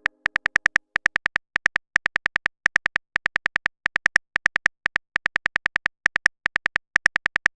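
Phone keyboard typing sound effect: rapid, identical taps in short bunches of about four to six, with brief pauses between the bunches, as a message is typed out.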